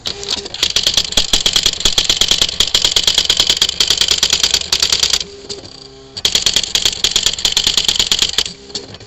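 Smith Corona electronic typewriter printing its built-in demo text by itself: a fast, even rattle of print strikes, many per second. Just past halfway the striking stops for about a second while a low motor hum is heard, then the rapid typing resumes, with another brief lull near the end.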